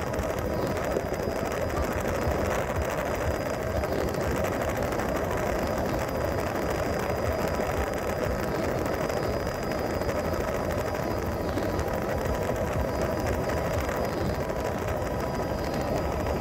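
Helicopter engine and rotor noise heard inside the cabin: a steady, unbroken drone with a faint high whine over it.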